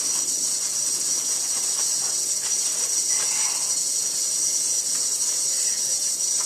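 Kitchen faucet's pull-down spray head running, a steady hiss of fine streams of water falling into the sink basin.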